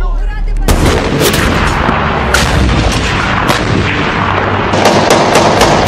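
Battle noise: gunfire and artillery fire that starts suddenly under a second in and runs as a continuous din of shots, with quick cracks crowding together near the end.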